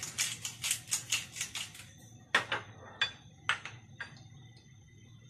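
Pepper shaker shaken over a bowl, a rapid rhythmic rattle of about five shakes a second that stops about two seconds in, followed by four separate sharper taps.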